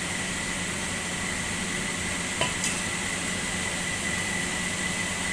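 Steady machine hum with a thin high whine running under it, and two light clicks about two and a half seconds in.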